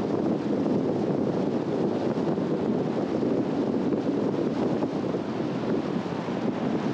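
Steady rushing road noise of a car driving on a mountain road: tyre roar mixed with wind noise, even and unbroken.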